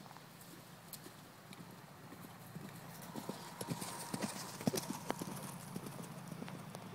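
Hoofbeats of a cantering horse on a sand arena. They get louder as the horse passes close, about halfway through, then ease off as it moves away.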